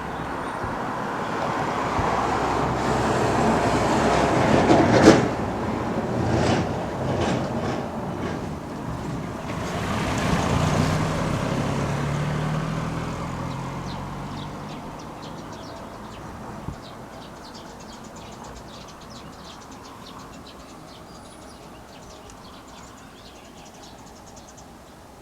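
Road traffic passing: a swell of engine and tyre noise that peaks about five seconds in with a sharp clatter, then a second vehicle going by around ten seconds in, its engine note falling in pitch as it passes, before the noise fades away.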